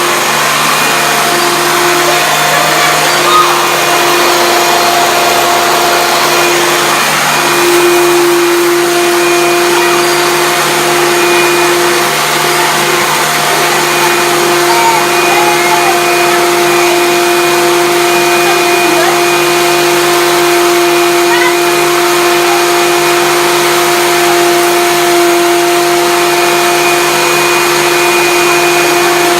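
Hoover Turbopower 1 Freedom vacuum cleaner running steadily, its motor holding one constant pitched whine over the rush of air.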